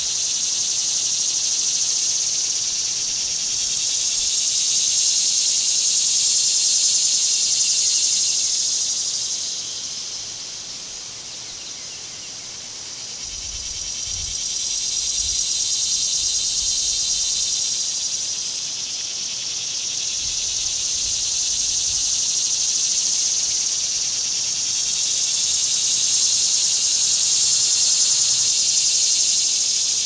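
Chorus of cicadas buzzing, a dense high hiss that swells and fades in slow waves lasting several seconds, sagging about ten seconds in and building back up.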